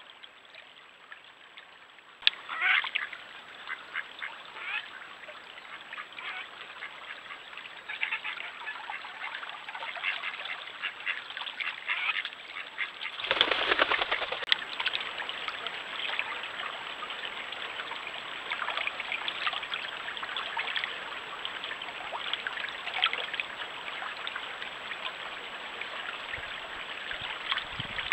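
Mallards quacking in short bursts over the steady rush of a stream, starting about two seconds in.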